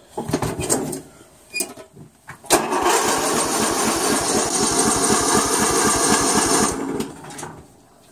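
Riding lawn mower engine being cranked by its electric starter without catching. A short crank comes within the first second, then a longer crank of about four seconds with a rapid even chugging that stops abruptly: the engine turns over but won't start.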